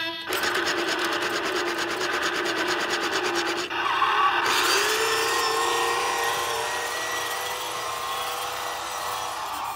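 Toy monster truck running, its small motor and gears squeaking. There is a rapid rattle for the first few seconds, then a steadier whine from about four seconds in. The squeaking comes from dry, dirty moving parts that need oil and cleaning.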